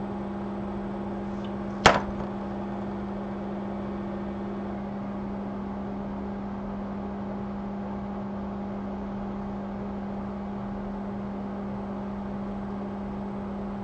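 Steady electrical hum of the microsoldering bench's rework equipment running, with a single sharp click about two seconds in. One of the hum's higher tones drops out about five seconds in.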